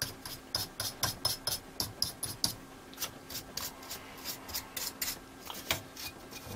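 Quick scratchy rubbing strokes, about four a second and thinning out near the end, as loose dust is cleaned by hand off the deflection yoke of a vintage valve television's picture tube.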